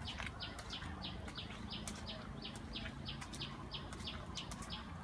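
A bird chirping over and over, short high chirps repeated evenly about two to three times a second.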